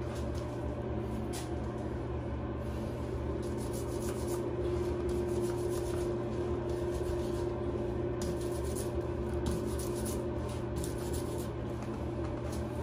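Microfiber cloth wrapped over a hand tool being rubbed across vinyl wallpaper with glass beads, making faint scratchy swishing strokes that come in clusters, busiest in the middle and second half, over a steady low hum.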